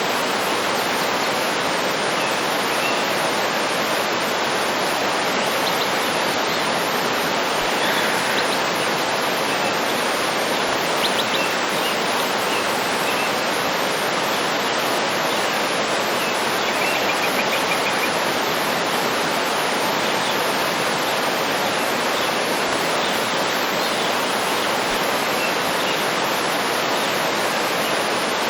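Waterfall rushing steadily, with faint bird chirps and short trills now and then over the water.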